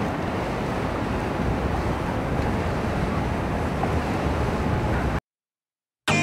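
Steady rush of wind on the microphone mixed with water and boat noise, cutting off abruptly to silence about five seconds in.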